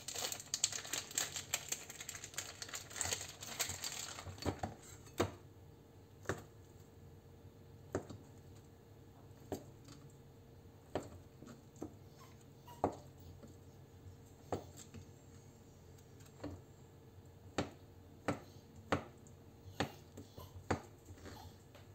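A plastic feta packet crinkling as it is opened, then a knife slicing a block of feta into cubes, the blade tapping the plastic cutting board about once every one to two seconds.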